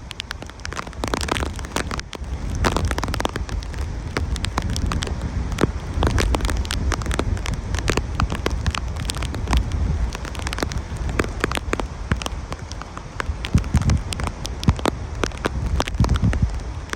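Hurricane wind and heavy rain. Strong gusts buffet the microphone in a steady low rumble, while rain hits in dense, sharp crackling ticks.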